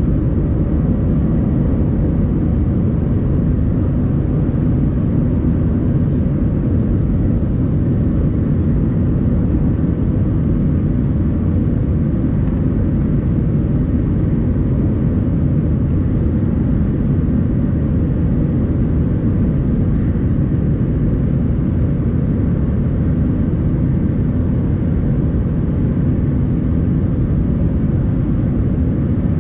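Steady cabin noise inside an Airbus A319, heard from a window seat over the wing during the descent to land: the jet engine and rushing airflow make an even low rumble with a faint steady hum.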